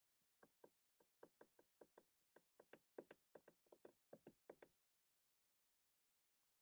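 A quick run of faint light taps, about twenty in four seconds, stopping about two-thirds of the way through.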